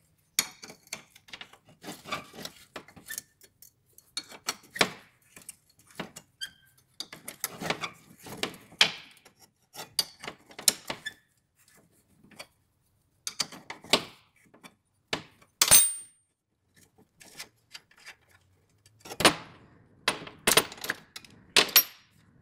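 Irregular metal clicks, scrapes and knocks as vice grip pliers work a rusted nut off the end of an old reel mower's roller axle and the roller is worked free, with a short high metallic ring about two-thirds through.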